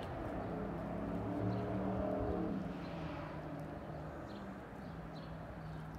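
A motor vehicle's engine hum, steady in pitch, growing louder about two seconds in and then fading away.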